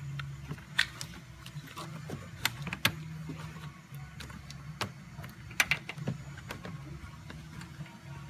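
Plastic trim cover being pushed and lined up into place, giving a series of sharp clicks and knocks, with a low steady hum behind.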